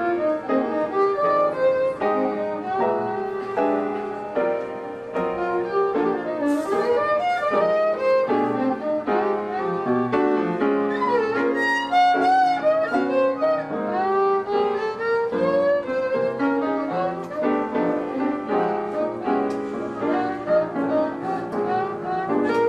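Jazz violin and piano duo: the violin plays a melody full of sliding, wavering notes over piano chords.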